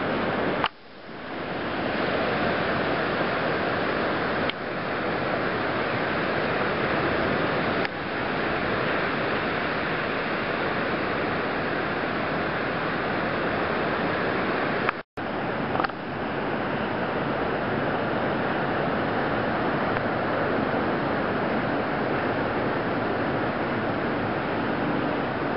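Steady surf washing on a beach, an even hiss of breaking waves. It drops out suddenly for a moment about a second in and again about halfway through.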